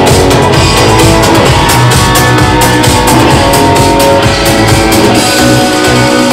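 Stratocaster-style electric guitar playing a rock melody live, over drums.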